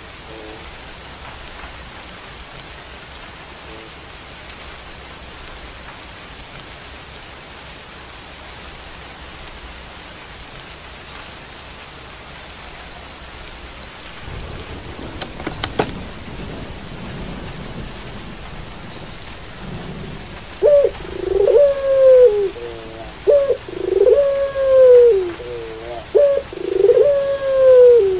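Steady rain hiss throughout. Around the middle there is a brief low rumble with a few sharp knocks. From about two-thirds in, a puter pelung (domestic ring-necked dove) coos loudly and repeatedly: four long notes, each held and then dropping in pitch, with short clipped notes between them.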